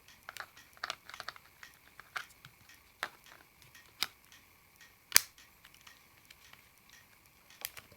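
Small plastic clicks and taps from handling an Ericsson T20e mobile phone while fitting a SIM card, about a dozen scattered clicks with the sharpest about five seconds in.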